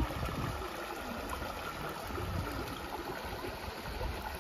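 Steady rushing noise of flowing water, like a stream, with a sharp knock right at the start.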